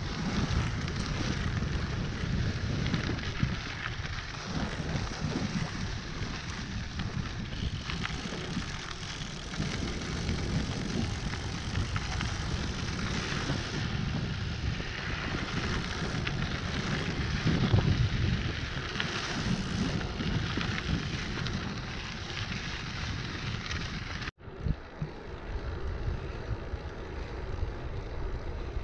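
Riding noise from a gravel bike: wind rushing over the camera microphone and the tyres rolling over a dirt trail, a steady rushing sound with a strong low rumble. About 24 seconds in it cuts out abruptly and resumes somewhat quieter, rolling on pavement.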